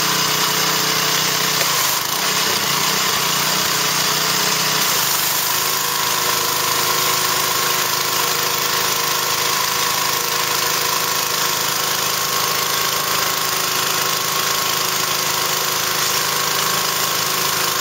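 Pressure washer running steadily, a continuous mechanical drone with the hiss of its spray.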